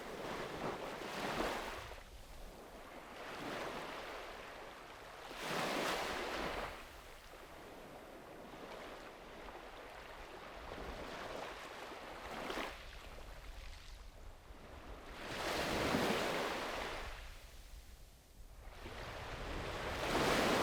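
Small sea waves breaking and washing onto the beach, swelling and falling every few seconds, with a low rumble of wind on the microphone underneath.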